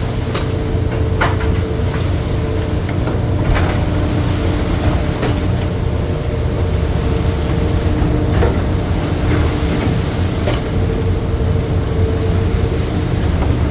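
Crab boat's engine and deck machinery running with a steady low drone and hum, broken by scattered knocks and clanks of crab-fishing deck work.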